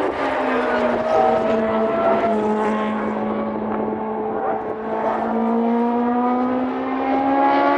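Mazda 787B's four-rotor rotary engine running at a steady fast idle. Its pitch dips at the start, holds, and creeps up slightly near the end, with other race-car engines idling alongside.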